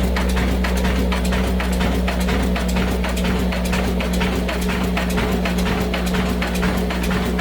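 Old black diesel engine running steadily with a low hum and an even beat of about four to five knocks a second, driving an atta chakki flour mill.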